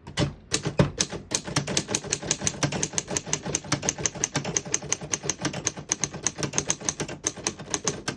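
1936 Underwood Universal portable typewriter being typed on: a quick, even run of keystrokes, about six a second. The keys strike cleanly, none of them skipping or sticking.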